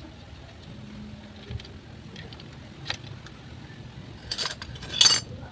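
Metal hand tools and engine parts clinking and rattling: a light knock and a click early, then a quick cluster of sharp metallic clinks, loudest about five seconds in.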